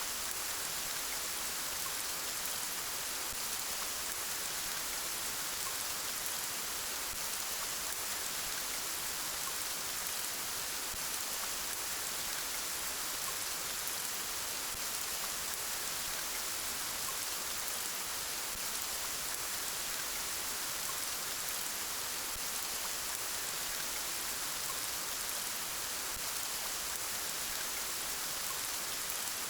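Steady rainfall, an even hiss of rain with fine patter of drops, unchanging throughout.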